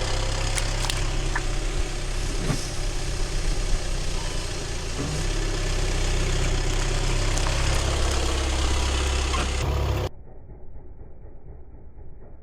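Car engine running at low speed as the car rolls slowly, with tyre noise and a few sharp cracks of objects being crushed under the wheels. The sound cuts off suddenly about ten seconds in, leaving only a faint, muffled background.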